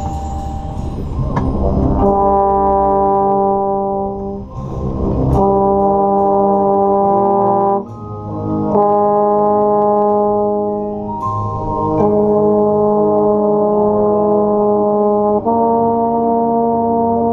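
Marching band brass playing long held chords, with a marching baritone played right at the microphone. The chord changes about every three seconds, with a short break just before eight seconds in.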